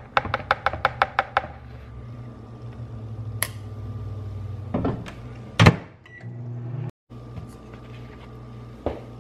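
A spatula tapped rapidly against a plastic mixing bowl of thick pudding, about six quick taps a second for the first second and a half, then a few knocks and one loud thump as things are set down on the counter, over a steady low hum.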